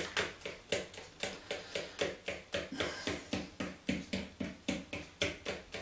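Pancake batter being beaten by hand in a mixing bowl, the utensil knocking against the bowl in a steady rhythm of about four strokes a second while the lumps are beaten out.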